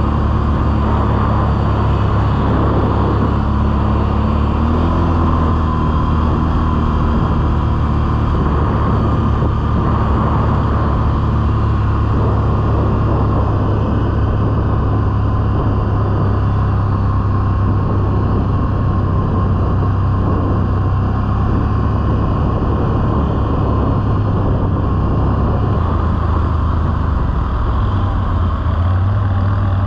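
ATV engine running steadily at a cruising pace as the quad rides over snow-covered river ice, its pitch shifting only slightly.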